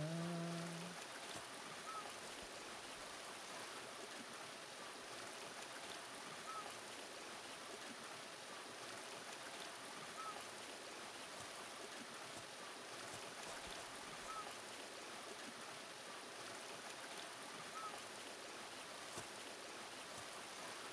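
Faint, steady outdoor background hiss with a short high chirp repeating every few seconds. A man's hummed tune breaks off about a second in.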